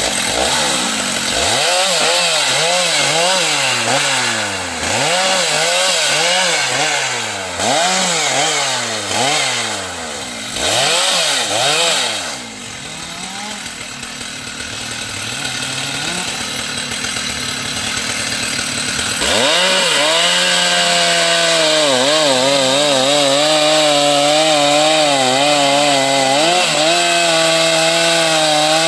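Stihl two-stroke chainsaw revved in quick repeated blips, dropping back to a lower run, then held at a steady high speed from about two-thirds in, as when it is cutting through wood.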